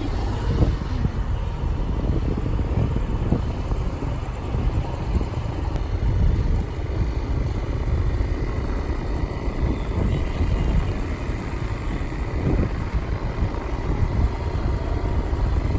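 Riding a motor scooter: running engine and road noise, with wind buffeting the microphone in a heavy, uneven rumble.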